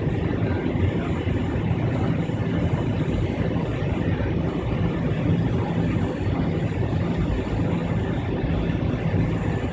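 Steady cabin noise of an Avro RJ100 taxiing, its four turbofan engines running evenly at low power, heard from inside the cabin.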